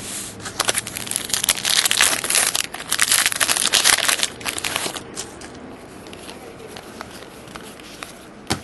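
Trading-card pack wrapper crinkling as it is torn open and handled for about five seconds, then softer rustle of cards being handled, with a sharp click near the end.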